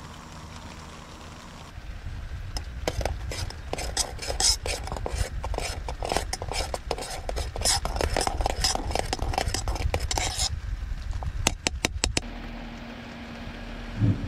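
A spoon clinking rapidly against a cup as something is stirred, for about eight seconds, then a few separate taps. A steady low hum starts near the end.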